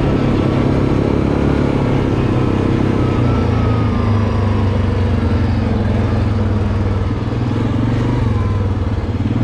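Yamaha Grizzly ATV's single-cylinder engine running continuously at a fairly steady pitch while riding, with small rises and falls in pitch.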